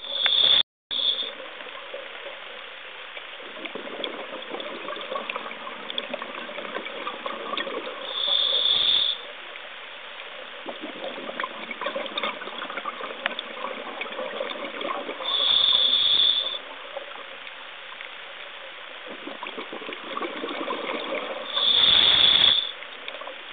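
Scuba diver breathing through a regulator underwater: quieter hissing inhalations alternate with loud gushes of exhaled bubbles, four bursts about seven seconds apart.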